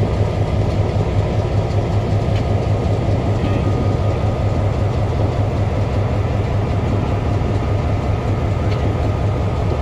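EMD GP9 diesel-electric locomotive's two-stroke V16 567 engine running at low throttle as the locomotive rolls slowly past, a steady deep throb.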